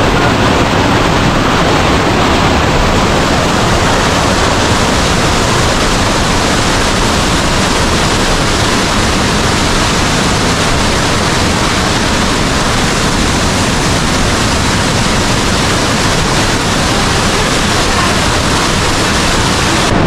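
Waterfall pouring down, heard close up as a loud, steady rush of falling water.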